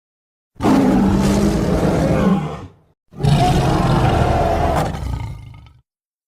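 Two separate dragon roar sound effects for a Night Fury, each about two seconds long with silence between; the second fades away at its end.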